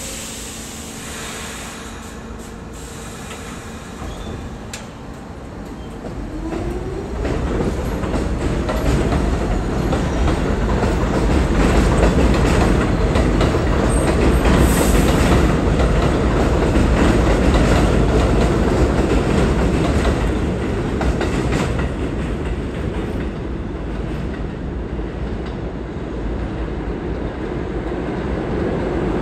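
New York City subway trains on an elevated steel line: a standing train hums, then its traction motors whine up in pitch as it pulls out, swelling into a loud rumble and clatter of wheels on the steel structure. The noise eases, then builds again near the end as the next trains approach.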